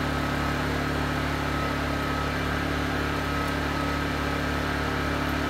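WEN 56203i inverter generator's small four-stroke engine running steadily at an even speed, eco mode off, choke eased in as it warms up just after its first start.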